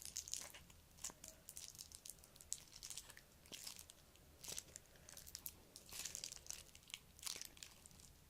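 Faint crinkling and crackling of a plastic glue tube being squeezed and handled, in short irregular bursts.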